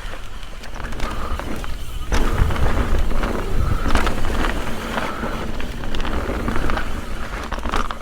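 Mountain bike running down a rough trail: tyres rolling over rocks and roots under a steady low rumble, with frequent knocks and rattles from the bike.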